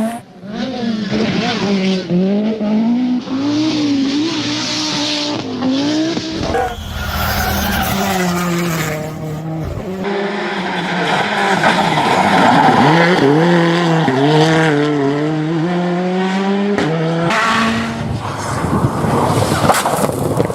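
Rally car engines running hard, the pitch climbing and then dropping again and again as the drivers shift up through the gears, over several abrupt changes from one car to another.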